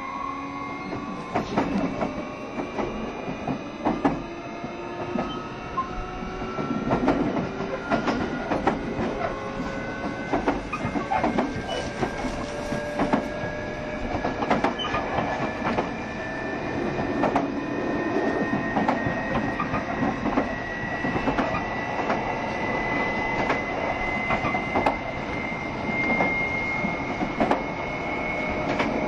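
JR Shikoku 7200 series electric train running, heard on board: the motors' whine rises slowly in pitch as the train gathers speed, with a rumble and repeated clicks of the wheels over rail joints.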